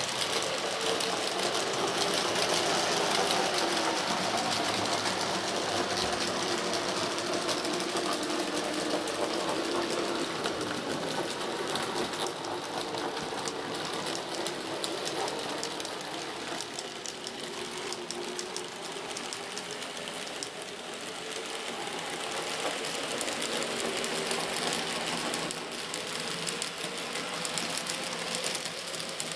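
N gauge model train running on the layout: the small electric motor whirs with a whine that wavers up and down in pitch, over a steady hiss and fine clicking of the wheels on the track.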